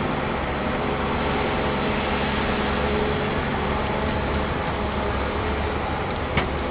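An engine running steadily with an even hum, and a single short click near the end.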